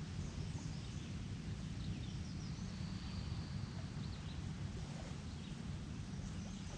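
Faint wild birds chirping and calling, with one thin high trill held for over a second about halfway through, over a steady low rumble.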